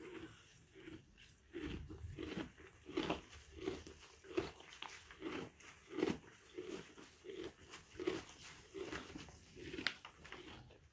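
Donkey chewing hay from a feeder tub: steady rhythmic crunching, about one and a half chews a second.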